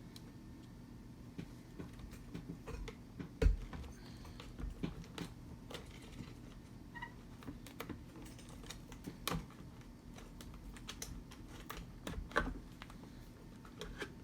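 Irregular light clicks and taps of small parts and wires being handled and fitted during a repair, with one sharper knock about three and a half seconds in, over a low steady hum.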